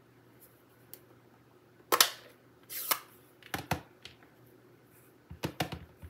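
Plastic stamp ink pad handled on a craft table: a sharp snap about two seconds in as its lid is opened, a brief scrape, a couple of light clicks, then a quick cluster of taps near the end as a clear acrylic-block stamp is pressed onto the ink pad.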